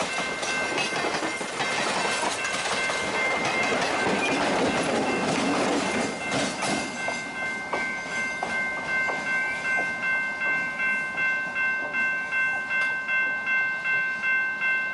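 Passenger train passing close by, its wheels clattering over the rail joints. About seven seconds in, the clatter fades as the rear locomotive goes by and draws away. A bell is left ringing in steady strokes, nearly two a second.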